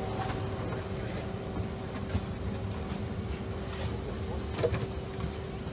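Steady cabin hum inside a CRJ-700 regional jet during boarding, with faint passenger voices and a few light knocks, one louder near the end.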